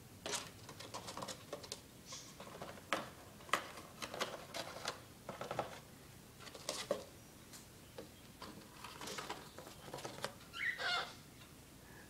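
A small animal scrabbling and rustling inside a cardboard cereal box: irregular clicks, scratches and crinkles of the cardboard, with one short squeaky chirp near the end.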